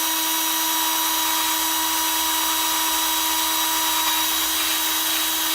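Small electric drill with a tiny bit running at a steady high whine as it bores a hole into a plastic toy-truck base.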